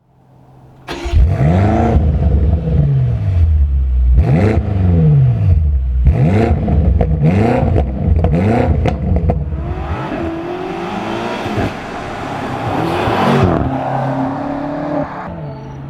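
BMW M5 F90's 4.4-litre twin-turbo V8 being revved in short, repeated blips, each rising and falling within about a second, with sharp cracks among them. The revs settle to a steady idle near the end.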